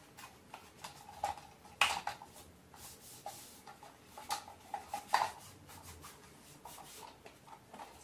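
Damp cloth rubbing over the plastic dust bin of a Roomba 600-series robot vacuum, wiping off the last dust, with a few light clicks and knocks of the plastic bin being handled. The clearest knocks come about two seconds in and again around five seconds.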